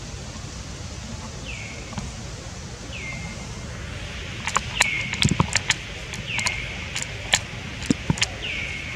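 A high whistled call repeats about every second and a half, each one dropping in pitch and then holding one note briefly, over a steady outdoor hiss. From about halfway through, a run of sharp clicks and taps is louder than the call.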